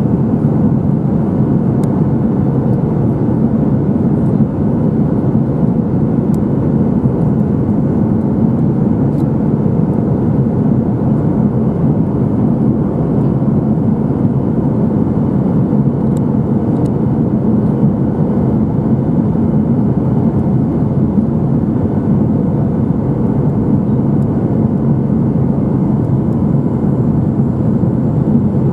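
Steady cabin noise of a Boeing 737-900 descending with its flaps extended: the jet engines and the rushing air over the fuselage and wing blend into one even low noise, with a faint hum, heard from a window seat.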